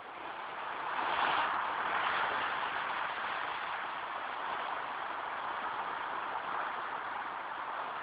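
Sea waves washing in, a steady rushing that swells about a second in and then holds even.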